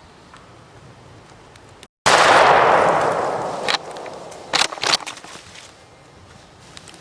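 A single shotgun blast about two seconds in, fired at a turkey, its echo dying away through the woods over about two seconds. A few sharp clicks follow a second or two after the shot.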